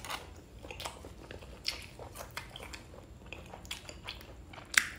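Close-up chewing of a mouthful of grilled balut egg: soft wet mouth clicks and smacks. Near the end comes one sharper crunch as a slice of raw red bell pepper is bitten into.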